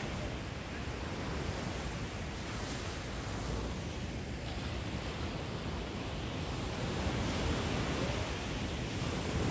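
Surf breaking on a sandy beach: a steady, even wash of waves with a low rumble.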